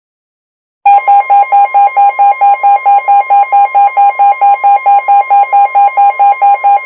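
A weather radio's alarm beeping rapidly, about four to five loud beeps a second, over a steady tone near 1 kHz, the NOAA Weather Radio 1050 Hz warning alarm tone, both starting about a second in. This is the alert for a special marine warning about to be read.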